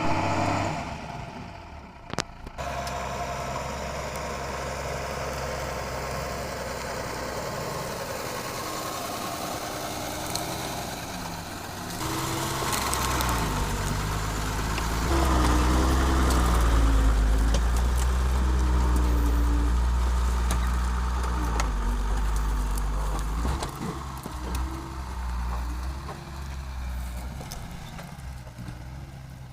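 Engine of a 4x4 off-road vehicle running, its pitch rising and falling as it revs, with a heavier low rumble from about 15 to 23 seconds in. A couple of sharp clicks sound about two seconds in.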